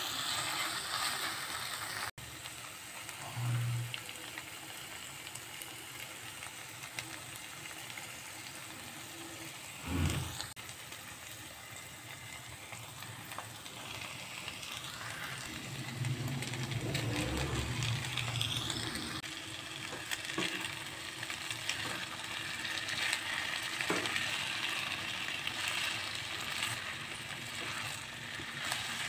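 Tomato-onion-capsicum masala sizzling in a non-stick kadhai while a spatula stirs and scrapes through it. About halfway through, boiled spiral pasta is tipped into the pan with a few soft thumps and stirred into the sauce.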